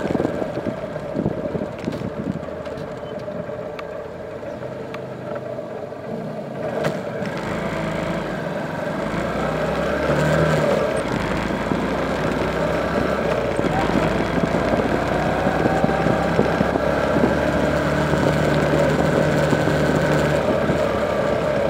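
A 125 cc motorcycle engine running while being ridden through town traffic. The engine eases off for the first several seconds, then builds up again as the bike speeds up.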